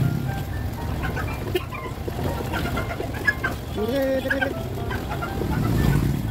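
Several short clucking calls of fowl, with one stronger call about four seconds in, over a steady low rumble.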